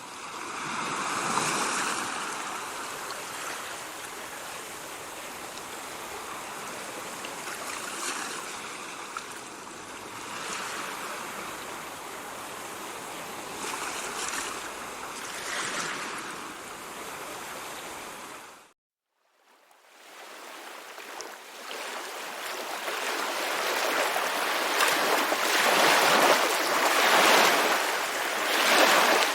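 Ocean surf washing in swells that rise and fall every few seconds. It cuts to silence for about a second roughly two-thirds of the way through, then comes back louder with stronger surges of breaking waves.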